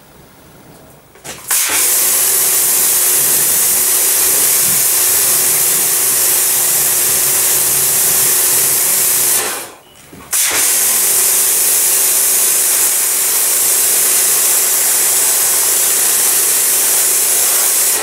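Pressure washer jet spraying: a loud, steady hiss with a steady hum from the pump underneath. It starts about a second and a half in, stops briefly near the middle as the trigger is let go, then sprays again.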